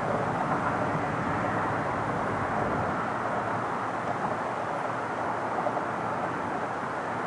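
Boeing 777 airliner on final approach, its jet engines heard from the ground as a steady, even rushing noise.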